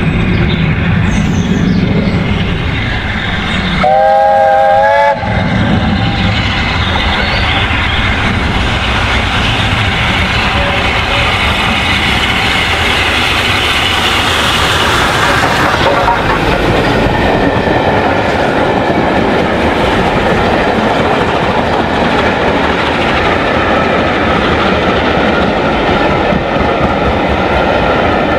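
BR Standard Class 8P three-cylinder steam locomotive 71000 Duke of Gloucester running under steam with its exhaust beating. About four seconds in it gives a whistle blast lasting about a second. Then it passes close by and its coaches rush past, wheels clattering over the rail joints.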